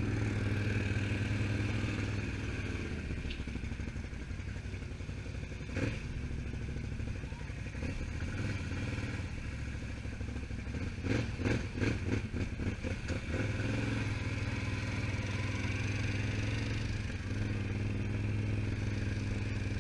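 ATV engine running steadily, with a single knock about six seconds in and a spell of clattering knocks a little past halfway.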